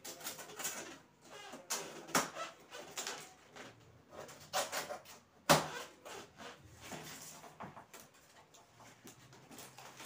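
Plastic packing straps on a cardboard fridge box being cut with a knife and pulled away: irregular scraping, rustling and clicking, with one sharp snap about halfway through.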